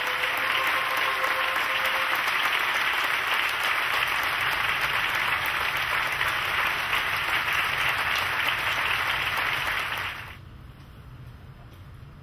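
Audience applauding steadily; the applause cuts off abruptly about ten seconds in.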